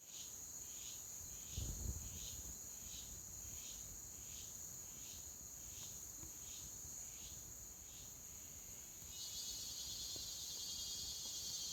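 Forest insects calling: a steady high drone with a chirp repeating about every two-thirds of a second that stops after about eight seconds, then a denser buzz joins in about nine seconds in. A brief low thump near two seconds.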